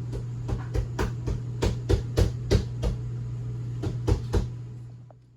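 A quick series of sharp knocks, about a dozen in four seconds at an uneven pace, over a steady low hum. The knocks and hum cut off about five seconds in.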